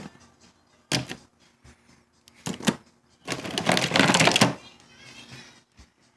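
Plastic action figures being handled and rummaged through: short bursts of clicking and clatter, one about a second in, two quick ones a little later, and a longer rattling rummage about three seconds in.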